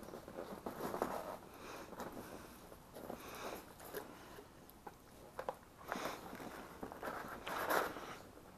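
Hands handling the float tube's plastic fishfinder-mount parts: irregular rustling and scraping with a few sharp clicks, loudest in a burst near the end.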